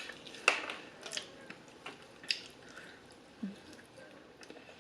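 Close-miked eating of extra crispy fried chicken: several sharp crunches of the coating, with wet chewing between them and a brief low hum of the mouth about three and a half seconds in.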